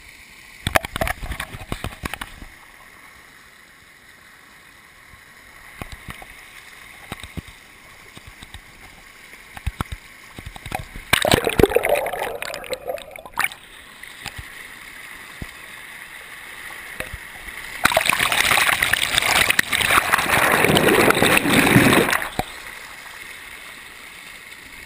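Water splashing and rushing in two loud stretches of a few seconds each, between quieter passages of steady hiss, with a quick run of clicks and knocks in the first couple of seconds.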